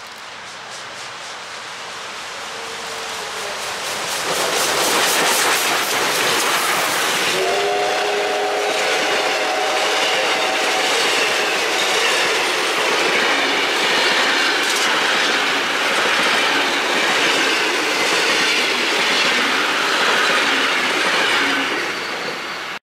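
Victorian Railways R class steam locomotive approaching and passing under steam, its exhaust beating rapidly and growing louder. About seven seconds in, its chime whistle sounds one long multi-note blast lasting several seconds. Then the carriages rumble and clatter over the rail joints as they go by.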